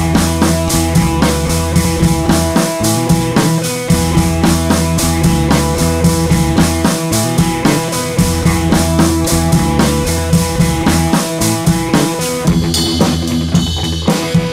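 Background music with a steady drum-kit beat over a pulsing bass line.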